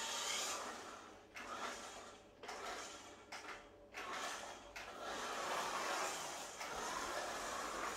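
Small battery-powered toy police car whirring as its motor and plastic gears drive it across a foam play mat. The whir breaks off briefly a few times in the first four seconds, then runs steadily.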